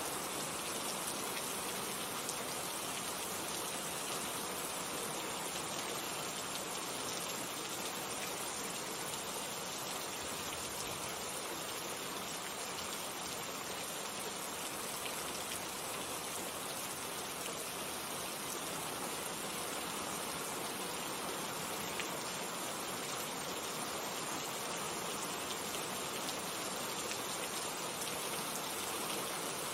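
Steady rainfall: an even hiss of rain with scattered individual drops pattering on a surface.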